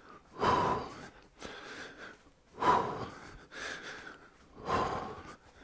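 A man breathing hard from exertion while exercising: three strong exhales about two seconds apart, with quieter inhales between them.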